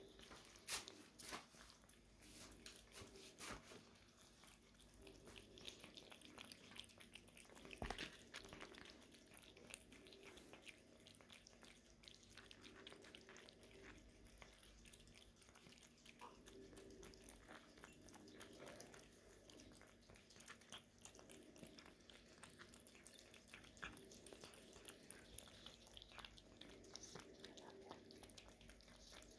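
Cats lapping and licking liquid food from a bowl: a fast, quiet stream of small wet licking clicks, with a few louder clicks near the start and about eight seconds in.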